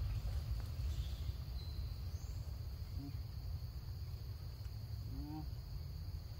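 Insects chirring steadily at a high pitch over a low rumble, with two faint short calls about three and five seconds in.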